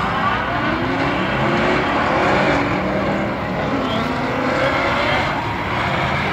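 Several drift cars' engines revving together, overlapping pitches rising and falling as the cars slide around the track.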